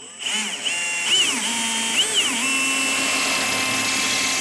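Cordless drill boring a hole with a bit just over a quarter inch through the side panel of a snowblower. The motor whine rises and falls several times as the trigger is feathered to start the bit on its mark. After about two and a half seconds it holds a steady speed as the bit cuts through.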